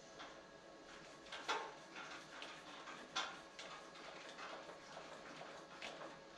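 Faint scattered clicks and small metal knocks of hardware being handled by hand: a threaded-rack adapter bracket and its screws being fitted to a server rack post, with two slightly louder clicks about one and a half and three seconds in.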